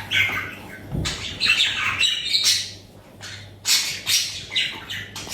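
Pet budgerigars squawking, a string of short harsh calls one after another.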